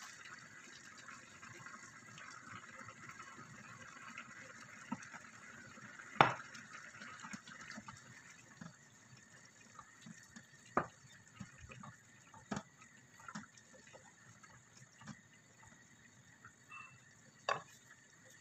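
Pasta sauce poured from a jar into a pan of macaroni and vegetables, a wet pouring hiss for the first several seconds. Then a wooden spoon stirs the mix in the pan, with sharp knocks against the pan; the loudest comes about six seconds in.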